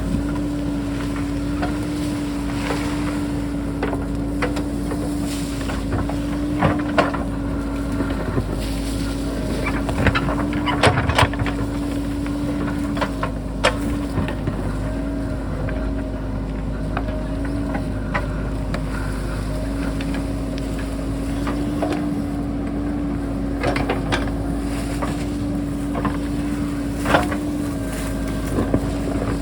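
Diesel engine of a JCB backhoe loader running steadily at high revs, with scattered sharp clanks and knocks from the digging, loudest around ten to eleven seconds in.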